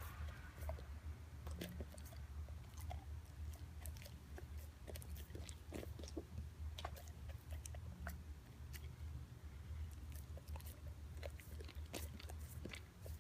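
Faint, irregular chewing and crunching clicks over a steady low hum.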